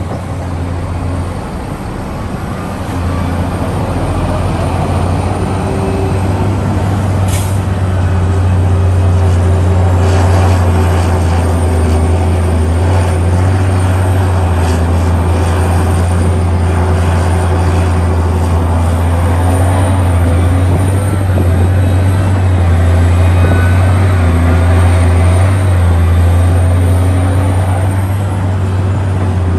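Heavy excavator's large diesel engine working: a steady, deep mechanical drone that grows louder over the first ten seconds or so, then holds.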